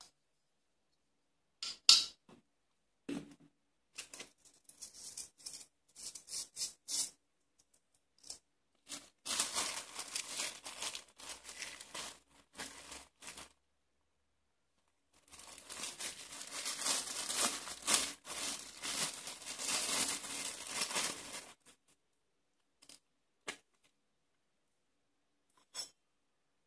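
Clear plastic bag crinkling and rustling in the hands in two long stretches while sanding pads are taken out of it. Before that come a few sharp clicks, the loudest about two seconds in, as metal multitool blades are handled and set down.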